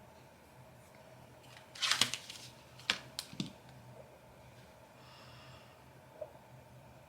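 A brief rustle, then a few sharp clicks of laptop keys, over a faint steady room hum.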